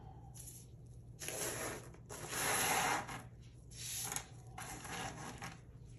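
Chunks of crushed fire glass poured out of a jar, rattling and clinking in several short runs, the longest and loudest about two seconds in.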